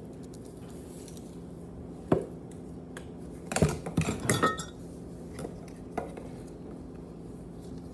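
Kitchenware clinking and knocking while spices go into a mixing bowl: one sharp knock about two seconds in, a quick cluster of clinks with a brief ring near the middle, and one more knock about six seconds in.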